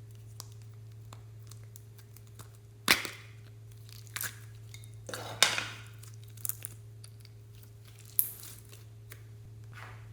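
Slime being mixed by hand, giving sharp pops and crackles as it is pressed and stretched. The three loudest pops come about three, five and a half and eight seconds in, between smaller clicks, over a steady low hum.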